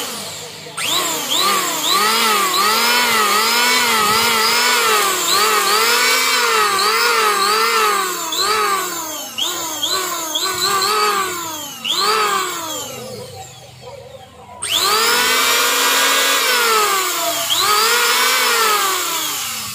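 Electric hand planer running, its motor whine rising and falling in pitch over and over. The whine fades out about thirteen seconds in and starts again sharply about a second and a half later.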